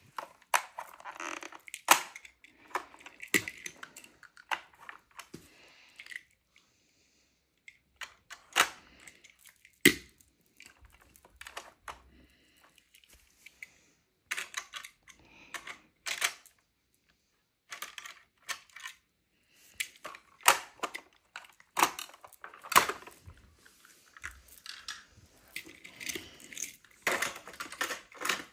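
Small plastic toys being handled and set down: irregular clicks, knocks and light clatter, with a few short quiet stretches in between.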